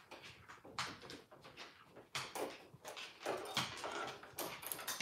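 Slow footsteps on a hard floor, with handling rustle from the phone being carried, one step about every second.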